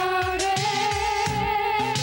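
A pop-soul song: a singing voice holds one long note over a band with a steady drum beat.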